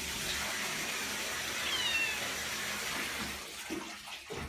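A cat meowing once, a short high call falling in pitch about two seconds in, over a steady hiss of running water that stops shortly before the end.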